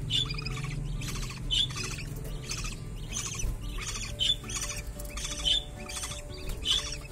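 Budgerigar chicks calling in the nest box: short raspy, high-pitched chirps repeated two or three times a second.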